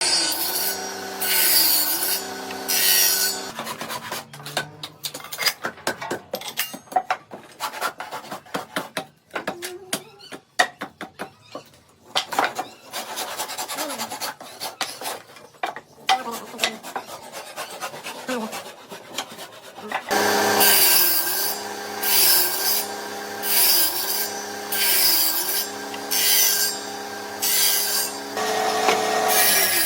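Woodworking machines cutting wood. A machine runs with a steady hum while its cutting noise swells and fades about once a second; through the middle stretch there is irregular clicking and scraping of wood instead.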